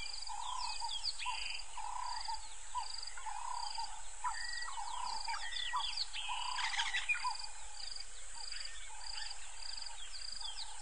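A chorus of several wild birds calling at once: many quick falling chirps, and one short high note repeated about twice a second, over a steady high hiss.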